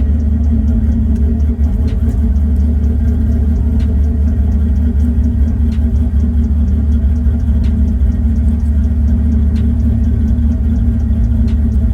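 Car engine idling steadily with a deep, even rumble, heard close up, and a faint tick about every two seconds.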